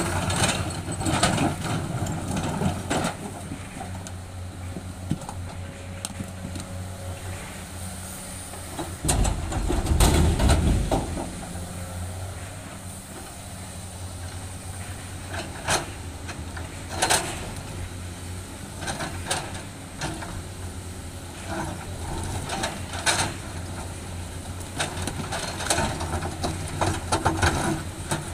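Komatsu 210 hydraulic excavator's diesel engine running steadily while it digs through broken rock. The engine swells to a heavier rumble for about two seconds around ten seconds in, and sharp clacks of rock striking the bucket and other rock come every few seconds.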